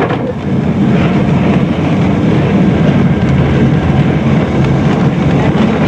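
Lisbon tram running along the street, heard from inside the driver's cab: a steady low drone of the motor and wheels on the rails.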